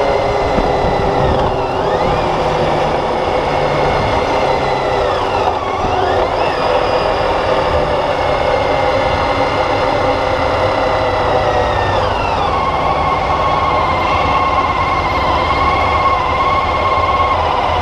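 Motorcycle engine running under way, its pitch dipping and climbing back twice in the first six seconds, then falling about twelve seconds in and holding steady at the lower pitch.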